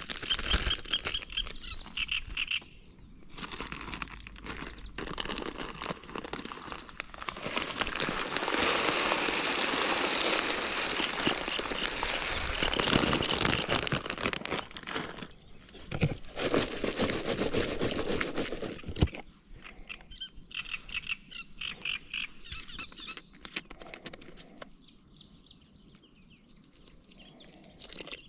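Rustling and handling noise with a longer stretch of steady hiss in the middle. Short runs of rapid, high chirping calls come near the start and again about twenty seconds in.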